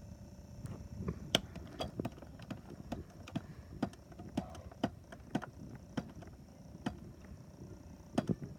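A series of sharp, irregularly spaced clicks or taps, about two or three a second, over a low rumbling background.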